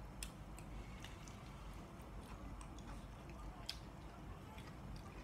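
A person chewing a mouthful of braised chicken liver, eaten by hand, with faint scattered wet clicks and smacks from the mouth.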